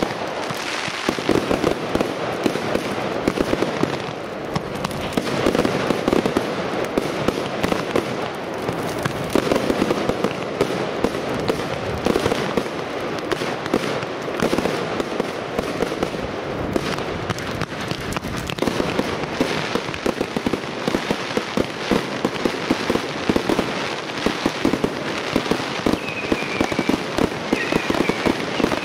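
Professional fireworks display: a continuous barrage of shell bursts, with sharp bangs and a dense rapid crackle of many small reports throughout.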